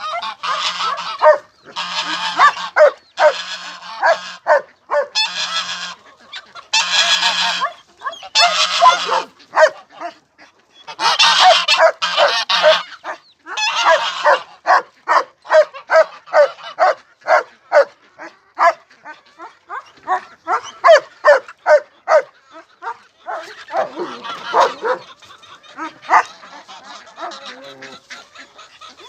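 Poultry calling loudly: a series of harsh, drawn-out squawks and honks, then a fast run of short repeated calls in the second half.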